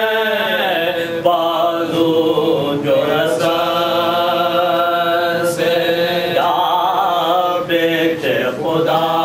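A man chanting an Urdu salaam, a Shia devotional elegy, in long held melodic lines.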